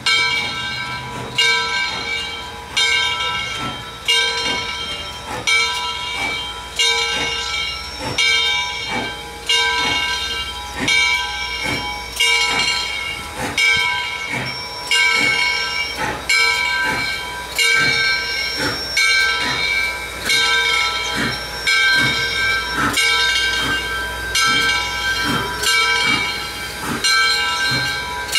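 Steam locomotive bell on Southern Railway 630, a 1904 Alco 2-8-0, ringing steadily about once every second and a half, each stroke ringing on, as the engine moves slowly, with steam hissing and a low rumble underneath.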